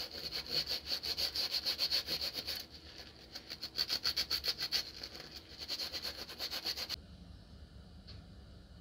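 Fast back-and-forth scrubbing of a pistol grip panel with a soapy kitchen sponge, about six rubbing strokes a second. The scrubbing pauses briefly a little under 3 s in and stops abruptly about 7 s in.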